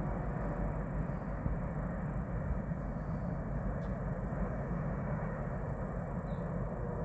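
Distant approaching BNSF freight locomotives, a GE AC4400CW leading an EMD SD70ACe, giving a steady low diesel rumble as the empty coal train comes on.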